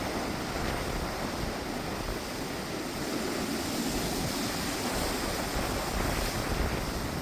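Strong wind gusting in a windstorm, a steady rushing with a rumble of wind buffeting the microphone.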